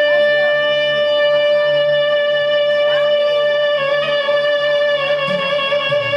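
Music: a reedy wind instrument holds one long note over a steady low drone, with a few short sliding ornaments around it.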